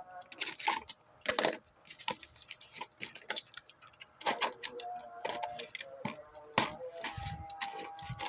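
Parcel packaging being handled and opened by hand: a string of irregular clicks, crackles and rustles of plastic and cardboard, with a few brief faint tones between them.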